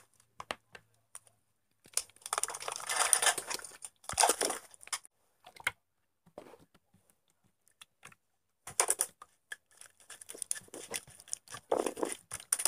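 Mint-green clay slime being poured, squished and stretched by hand: sticky, noisy handling sounds in two main bouts of a few seconds each, with quiet gaps between.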